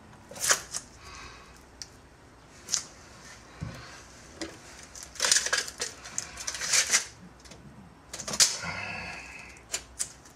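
Handling sounds of a laminated plywood engine-mount block being set and pressed into thickened resin: a string of sharp clicks and knocks, with two short rasping, scraping passes, one near the start and one near the end.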